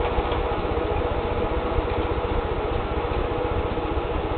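Hornby model tank locomotive running steadily along the track with its coaches: an even motor hum with a fast, continuous ticking of the wheels on the rails.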